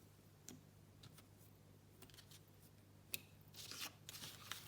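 Faint handling sounds, a few light clicks and taps, then rubbing and shuffling from about three and a half seconds in, as letters or papers are moved about on a table.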